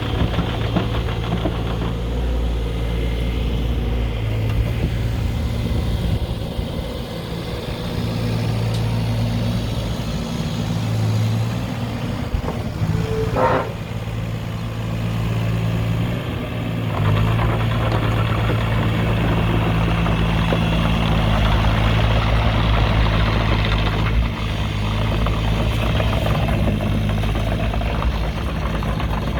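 The Yanmar diesel engine of a CAT 302.7 mini excavator running, its level rising and falling and louder from a little past halfway. A brief tone sounds about halfway through.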